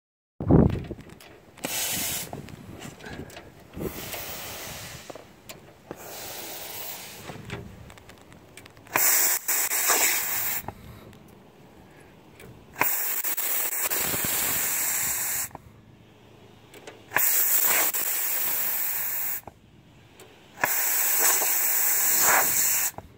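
Golf-course irrigation sprinkler heads hissing and spraying in bursts of two to three seconds, switching sharply on and off about six times. This is an irrigation blowout, with compressed air forcing the last water out of the lines as mist.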